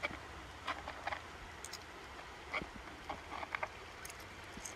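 Faint, scattered scratching and ticking of a fingertip stirring wet gold concentrate in a plastic gold pan, spreading it out to pick out the hematite. Under it a low, steady background hiss.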